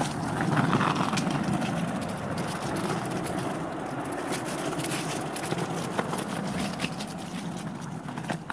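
Skateboard wheels rolling along a rough paved path: a steady rumble dotted with many small ticks.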